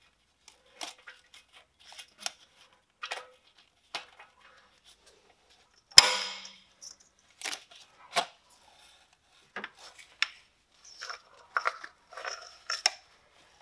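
Scattered metallic clicks, taps and scrapes of hand tools as a new oxygen sensor is threaded into the exhaust and tightened, with one sharp clack about six seconds in and quicker runs of clicks near the end.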